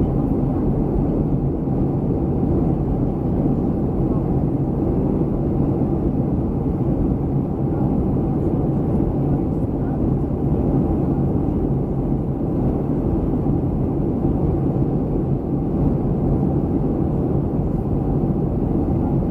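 Steady, even cabin noise of a Boeing 737-300 airliner in flight: engine and airflow rumble, deep and unchanging.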